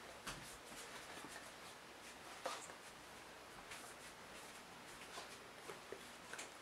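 Near silence in a small room, with a few faint clicks and rustles from a book being held and shifted in the hands; the loudest click is about two and a half seconds in.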